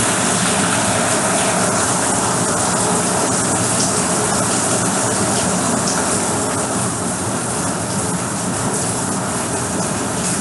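Steady heavy rain: an even, loud hiss with scattered sharp ticks of individual drops, starting abruptly.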